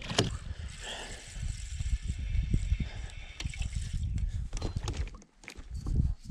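A small splash as a largemouth bass is dropped back into the lake, then scattered knocks and rubbing from the kayak and fishing gear over a low rumble of wind on the microphone.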